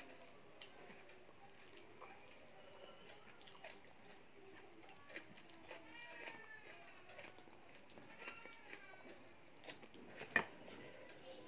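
Quiet eating sounds of dal and rice being mixed by hand on a steel plate and chewed: soft squishing, smacking and small clicks. Faint high curved calls sound around the middle, and a sharp click comes about ten seconds in.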